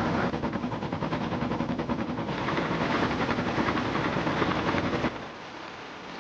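An engine chugging in a fast, even rhythm, which cuts off abruptly about five seconds in.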